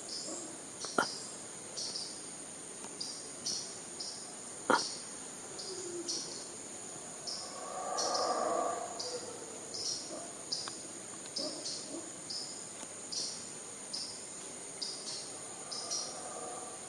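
Tropical forest insects: a steady high-pitched drone, with a chirp repeating about one and a half times a second. Two sharp clicks, about one second and about five seconds in.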